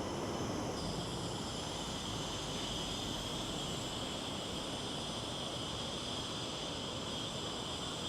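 Steady outdoor background noise, an even hiss with a faint high, unchanging hum above it.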